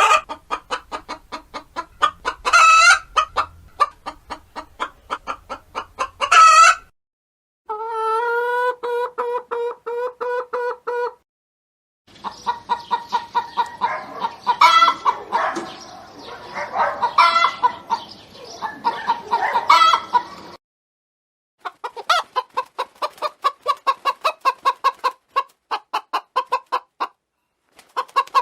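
Hens clucking and cackling in quick runs of short calls, with a few loud rising squawks. The recording is broken by several short silent gaps between separate chicken recordings.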